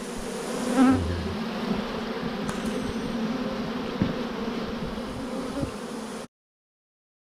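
A honeybee swarm humming steadily as the bees march into a new hive box, with a louder buzz about a second in. The sound stops abruptly near the end.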